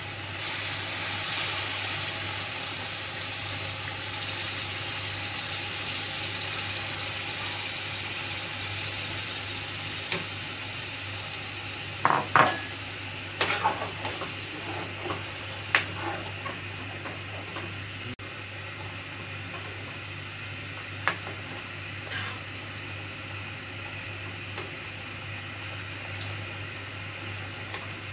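Curry gravy sizzling steadily in a steel pan while a steel ladle stirs it. Clustered in the middle, the ladle clinks and scrapes sharply against the pan several times, and these clinks are the loudest sounds.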